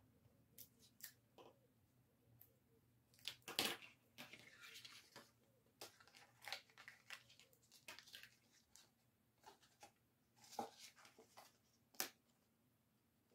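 Scrapbook paper being handled and folded: faint, scattered rustles and crinkles with a few sharper clicks, the loudest about three and a half seconds in and again near the end.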